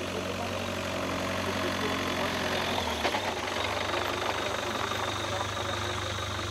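Ford Transit minibus engine idling steadily, its low note dropping a step about three seconds in.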